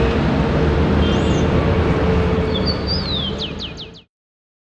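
Outdoor street ambience: a steady low rumble of traffic with a bird chirping, ending in a quick run of about five falling chirps, then an abrupt cut to silence about four seconds in.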